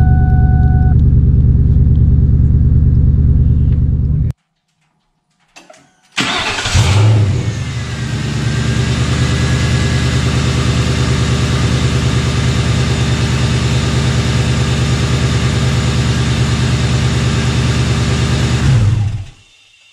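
2001 Mustang GT's 4.6-litre V8 running at idle, breaking off abruptly about four seconds in. After a short silence the cold engine catches with a brief rev flare and settles into a steady fast idle, with a faint high whine that slowly drops in pitch over its first few seconds. The idle fades out near the end.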